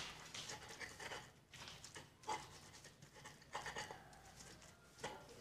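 Stone pestle (ulekan) grinding and crushing red chilies in a stone mortar (cobek): a series of quiet, irregular rough scrapes, roughly one or two a second.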